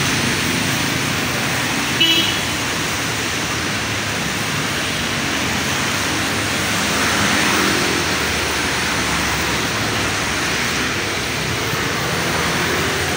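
Road traffic on a wet street: cars and motorbikes passing, their tyres hissing on the wet road. A short horn toot sounds about two seconds in, and a vehicle passes close and louder around the middle.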